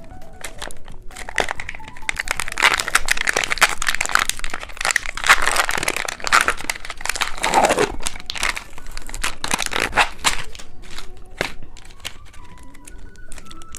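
Plastic candy packaging crinkling and crackling as it is handled and opened, densest through the middle of the stretch.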